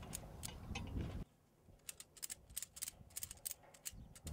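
Ratchet strap being tightened by hand: its ratchet clicking in a quick run of sharp clicks, several a second, as the strap draws a steel rafter plumb. In about the first second a low rumble lies under a few clicks.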